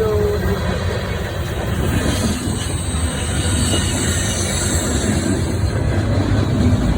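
BNSF manifest freight train rolling past with a steady, loud rumble of wheels on rail.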